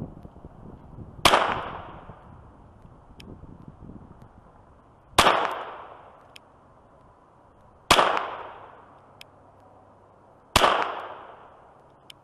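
Glock 44 .22 LR pistol firing CCI Blazer rounds: four single shots a few seconds apart, each with an echo that dies away over about a second.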